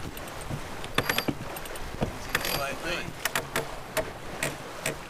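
A sailboat's sheet winch being cranked by hand, its ratchet pawls clicking in short irregular runs as the line is trimmed in.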